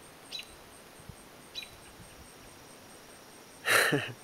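Quiet night ambience with a faint, even high-pitched insect pulsing, two short chirps about a second apart, and near the end a loud breathy rush of a person's exhale close to the microphone.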